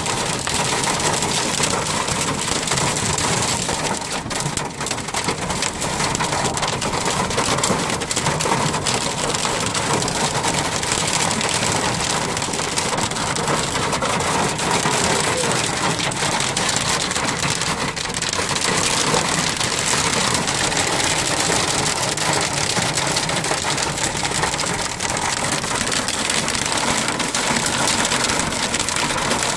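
Hail pelting a vehicle's roof and windshield, heard from inside the vehicle: a dense, steady clatter of countless small impacts.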